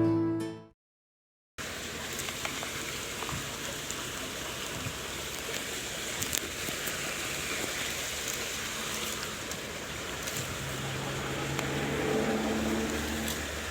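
Background music fades out, and after a brief silence steady rain sets in, with scattered ticks of drops.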